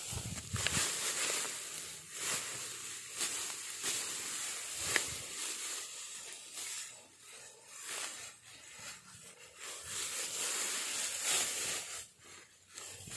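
Dry rice stalks rustling and crunching as they are cut and handled, an irregular run of crackly swishes with no steady rhythm.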